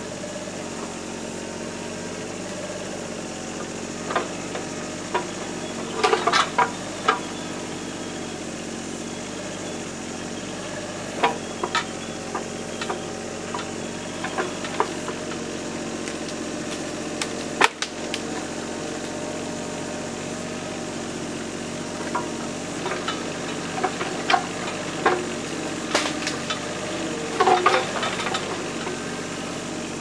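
Mini excavator's diesel engine running at steady revs as it tracks slowly along a dirt track. Short runs of sharp clicks and clanks come and go over the steady engine sound.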